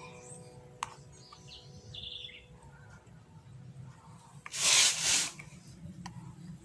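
Small birds chirping in the background over a steady low hum, with a sharp click about a second in. The loudest sound is a brief rushing noise in two quick pulses about four and a half seconds in.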